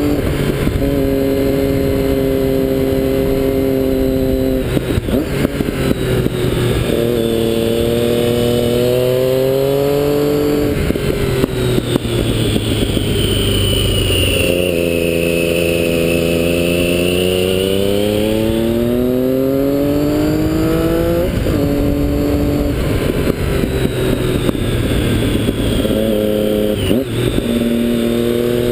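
Triumph Daytona 675's inline three-cylinder engine under way, holding steady revs and then pulling up through the revs several times, each climb cut off by a gear change.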